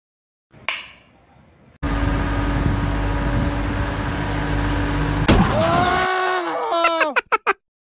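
Cartoon sound effects: a click, then a loud, steady mechanical whirring of a ceiling fan spinning fast for about four seconds that cuts off abruptly. A sharp hit comes near its end, followed by a string of short tones falling in pitch.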